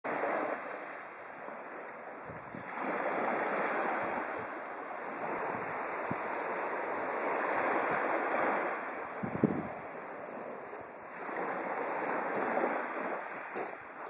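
Small sea waves lapping and washing over a pebble beach, swelling and easing three times. A brief low thump sounds a little past halfway.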